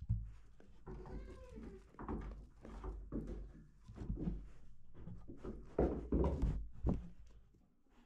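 Young goats nosing and rubbing against a camera right at their muzzles, with a kid bleating about a second in and several knocks as they bump the camera between about five and seven seconds.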